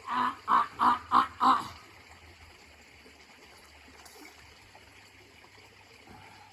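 Five quick, loud calls in a row over about a second and a half, each short and pitched, then only a faint low hum.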